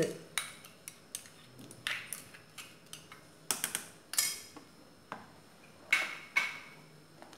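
Irregular clinks and taps of a glass bowl and a ladle against a saucepan as chopped tender coconut is tipped into a pot of payasam and stirred in, with two louder clinks near the end.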